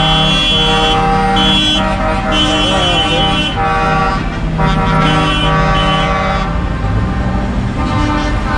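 Lorries in a convoy sounding multi-tone air horns in several long blasts, one after another, over the sound of diesel engines driving past. The horns stop about six and a half seconds in, leaving engine and road noise.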